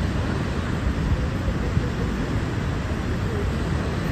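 The American Falls at Niagara: a steady rushing noise of falling water, heaviest in the low end.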